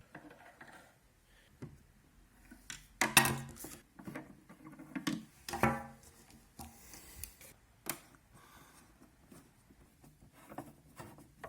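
A long Phillips screwdriver working screws out of a plastic dehumidifier casing: scattered clicks, knocks and scraping of the tool against plastic, with the sharpest knocks about three seconds in.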